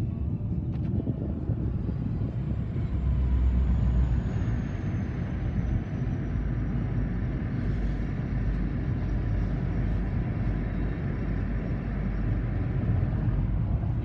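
Steady road and engine rumble of a moving car, heard from inside its cabin.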